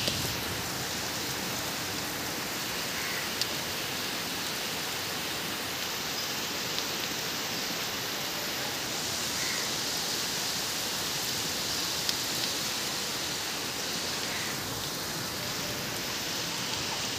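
Heavy rain pouring steadily onto a flooded street, an even hiss broken by a few sharper ticks.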